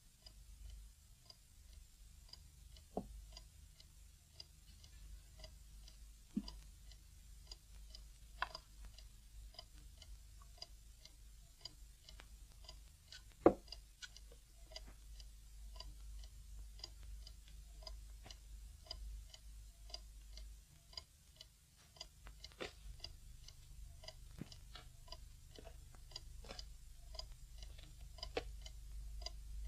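Clock ticking steadily, about two ticks a second, over a low hum, with a few louder sharp knocks, the loudest about thirteen seconds in.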